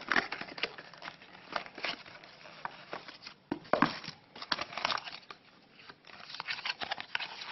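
A cardboard smartphone box and its packaging being handled: the white inner tray is lifted out, with rustling and crinkling and many irregular taps and scrapes of cardboard.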